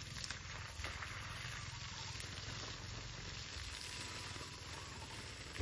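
Steady sizzling hiss of food cooking, with a few faint crackles.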